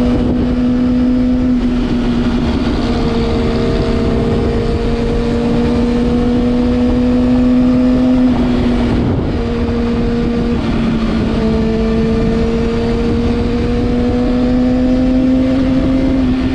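Vehicle engine running steadily at high revs under heavy wind rush, its pitch slowly climbing. The pitch drops a little about eight to nine seconds in and then climbs again.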